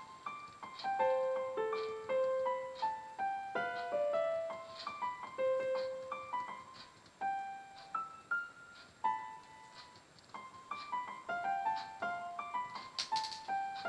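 Background music: a gentle electric-piano melody of single notes played one after another.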